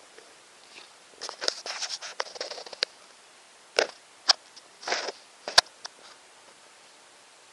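A young bearded dragon eating, with crunchy chewing clicks: a busy spell of them in the first half, then a few single sharp snaps, the last one the loudest.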